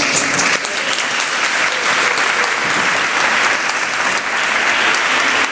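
Audience applauding: steady clapping from many hands, greeting the parish priest as he is welcomed.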